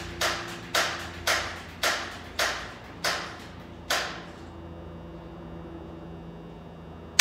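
Multi-pump BB gun being pumped, about two strokes a second, the last stroke near four seconds in. After that only a steady low hum is left.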